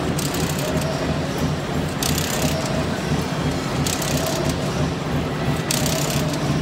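Automatic hexagonal wire mesh weaving machine running: a steady mechanical drone and clatter, with a brief hiss recurring about every two seconds as the machine cycles.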